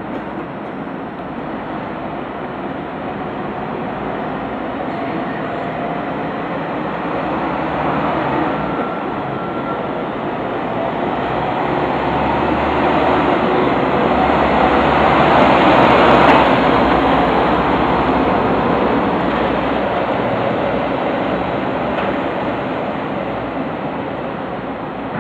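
Five-axle Liebherr LTM 1220-5.2 all-terrain mobile crane driving past: its diesel engine rumble and tyre noise grow louder as it approaches. They peak about two-thirds of the way through as it passes close, then fade as it moves away.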